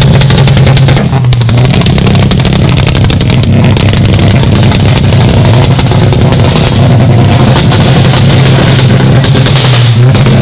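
A loud engine running steadily, its pitch stepping slightly up and down a couple of times.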